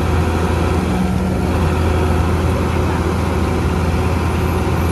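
Niigata NFB6C asphalt paver's diesel engine running steadily with a low, even hum.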